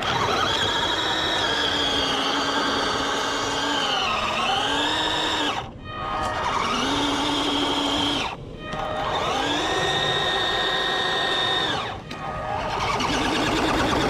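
Electric drive motor and gearbox of a cheap 1/16 six-wheel-drive RC crawler truck whining in four throttle bursts. Each burst spins up, holds a steady pitch and cuts off, and the pitch sags briefly about four seconds in as the truck comes under load.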